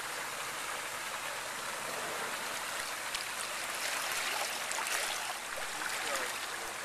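Steady rush of moving water in an aquarium tank, with a scatter of small splashes and drips, busiest in the middle.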